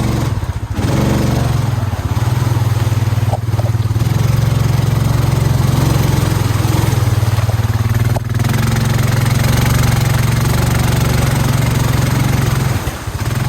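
Honda Rubicon 520 ATV's single-cylinder engine running steadily under throttle, with brief dips in engine sound about half a second in, around eight seconds in, and near the end.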